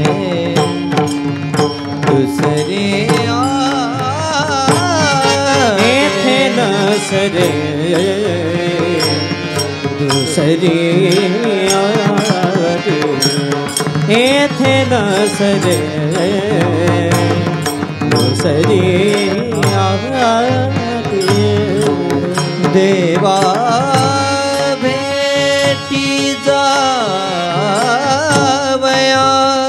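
Marathi devotional kirtan chal sung by male voices in a flowing melodic line, accompanied by taal (small brass hand cymbals) struck in a steady rhythm.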